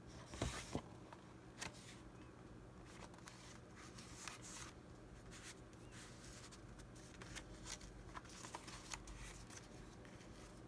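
Paper handling: a greeting card shut with two sharp taps about half a second in, then faint rustling and scraping as the card is slid into a paper envelope.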